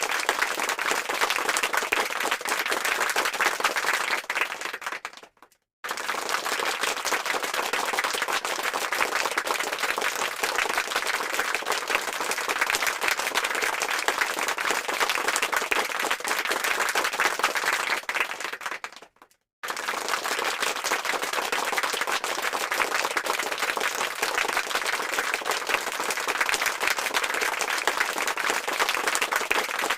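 Applause sound effect: a crowd clapping steadily. It fades out about five seconds in and again around nineteen seconds, each time falling silent for a moment before the clapping loop starts again at full level.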